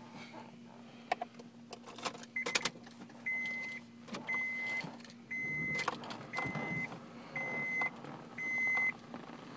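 Honda Insight dashboard warning chime beeping six times, about once a second, each beep a steady high tone about half a second long. A few sharp clicks come before it, from the key and controls around the ignition.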